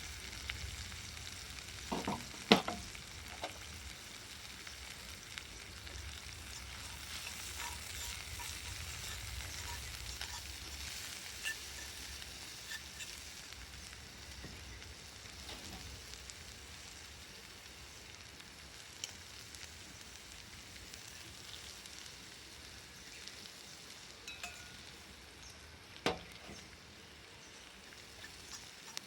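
Food sizzling in a cast-iron skillet as it is stirred, a steady frying hiss, with two sharp knocks, one about two seconds in and one near the end.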